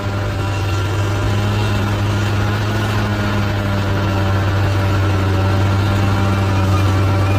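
Large bulldozer's diesel engine running steadily at a constant low pitch.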